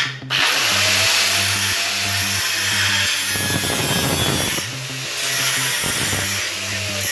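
Angle grinder with an abrasive sanding disc grinding a weld on a stainless steel frame: a loud, steady rasping hiss of disc on metal, with the motor's whine dipping and recovering a few times as it is pressed into the work.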